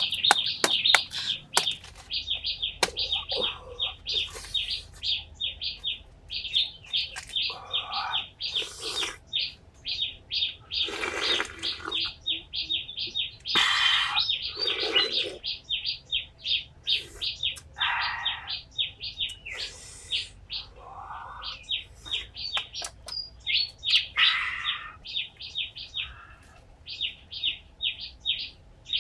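Birds chirping: a fast, continuous run of short high chirps, with louder, fuller calls breaking in every few seconds. A few sharp taps sound right at the start.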